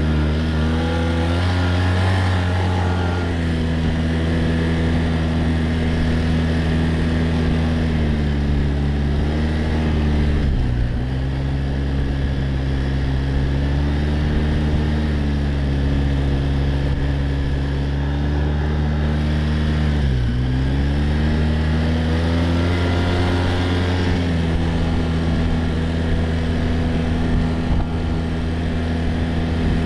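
Quad bike (ATV) engine running steadily while riding, its revs dropping briefly and picking up again twice, about ten and twenty seconds in.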